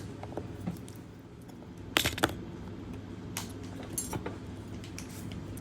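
A small screwdriver clicking and tapping against a Casio G-Shock GBX-100's case back while its screws are being undone: a handful of sharp light clicks, the loudest a quick double click about two seconds in.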